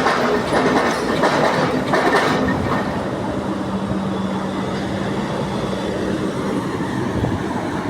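Heavy earth-moving machinery working: a diesel engine running under load, with clanking knocks over the first couple of seconds, then settling into a steady drone.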